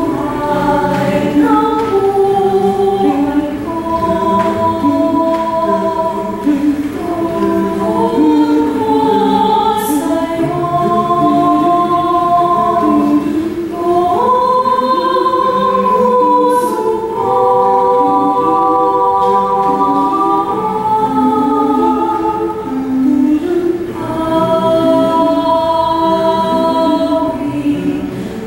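Mixed choir of women's and men's voices singing a cappella in several parts, holding long sustained chords that move together from one to the next.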